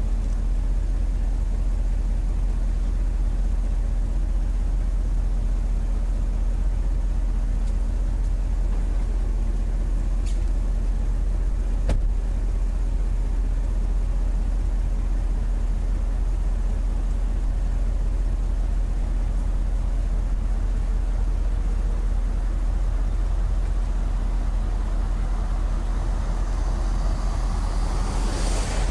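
A vehicle driving: a steady low rumble of engine and road noise with a faint constant hum. There is a sharp click about twelve seconds in, and near the end a rush of noise swells up.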